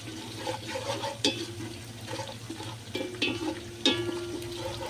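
Onions and garlic frying in oil in a pot, a steady sizzle, with two sharp knocks of a utensil against the pot about a second in and near the end.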